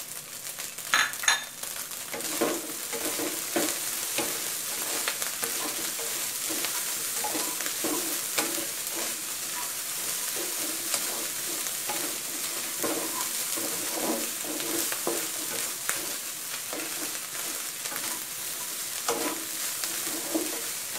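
Shrimp fried rice sizzling in a wok while a wooden spatula stirs and tosses it, with repeated scraping strokes across the pan and a couple of sharper knocks about a second in. The rice is being dry-fried so the grains stay separate.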